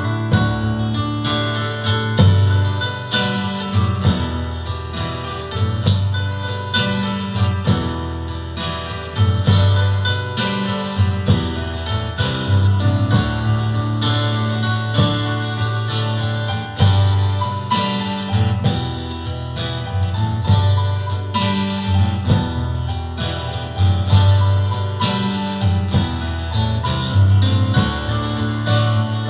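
Live acoustic guitar music, strummed chords with a steady rhythm and no singing: an instrumental break in a folk-pop song.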